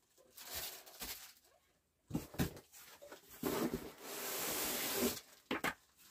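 Rustling and handling noises as hats are pulled out of a cardboard shipping box, with brief scuffs and a steadier rustle lasting about two seconds in the second half.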